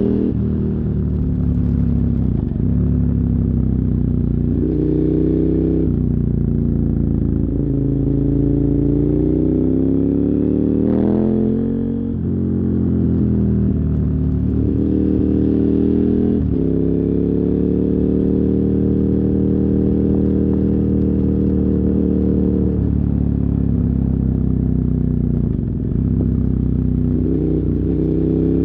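A 2007 KTM 990 Super Duke R's V-twin running through dual Yoshimura carbon exhausts while riding, heard from a phone in the rider's backpack. The revs climb and drop repeatedly as it goes up through the gears. It holds a steady cruise in the middle, then eases off and pulls again near the end.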